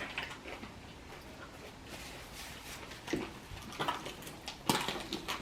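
People eating fried chicken by hand: faint chewing and mouth sounds with scattered small clicks and taps of handling the food, and a sharper click near the end.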